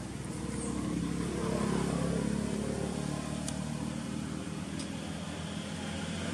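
A motor vehicle's engine running, its note swelling about two seconds in and easing off, with a couple of faint short ticks.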